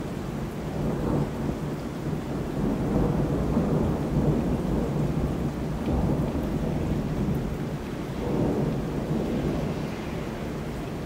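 Rolling thunder rumbling in several long swells that rise and ease, with rain falling throughout.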